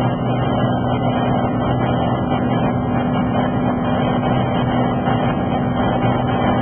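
Light airplane's engine and propeller droning steadily during a low pass, one even pitch with no change in speed.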